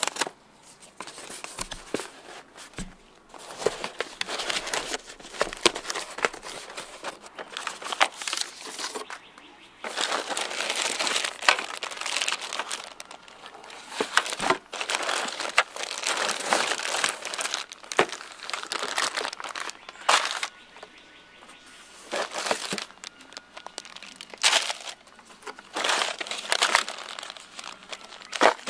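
Plastic bags and brown kraft packing paper crinkling and rustling as gloved hands rummage through a cardboard box of bagged parts, in irregular bursts with short pauses between them.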